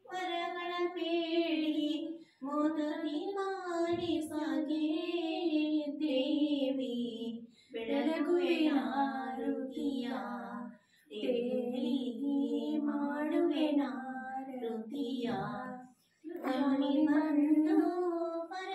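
Female voices singing a devotional aarti song with no accompaniment, in phrases of a few seconds broken by short pauses for breath.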